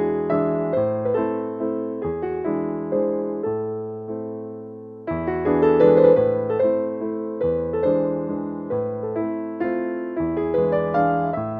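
Background piano music: a gentle melody of struck notes and chords over a bass line.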